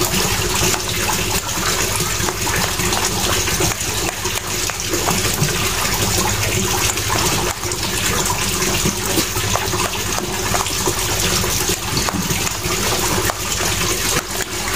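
Plastic spatula scraping and mashing thick bait dough against a stainless steel bowl, in irregular strokes, over a steady rushing noise that runs on unchanged.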